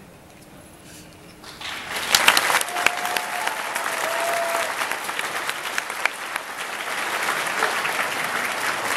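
Audience applause breaks out about a second and a half in and builds to steady clapping.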